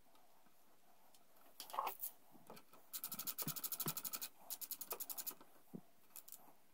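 A hand ratchet clicking rapidly in two runs of about a second each, roughly ten clicks a second, as the banjo bolt of a steel-braided brake line is run into a motorcycle's front brake caliper. A brief scrape of the fitting being handled comes just before.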